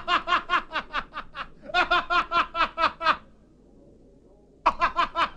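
A person laughing in quick, even "ha-ha-ha" bursts, about seven a second, at a joke's punchline. It comes in three bouts, with a pause of about a second and a half before the last one.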